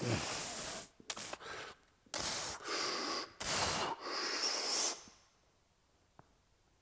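A lifter's forceful breaths in and out through the mouth, about six in five seconds, as he braces under a barbell for a seated behind-the-neck press; the breathing stops about five seconds in.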